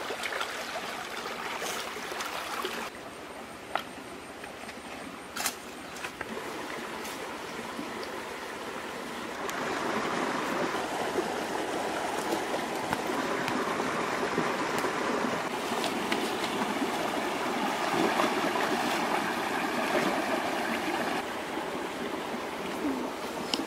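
Shallow rocky stream running and trickling steadily, growing louder about ten seconds in. A few sharp clicks stand out in the first several seconds.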